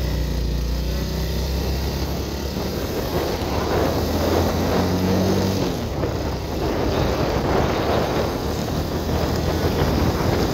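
Motorcycle engine running as the bike rides along. From about three seconds in, wind rushing over the microphone grows over the engine.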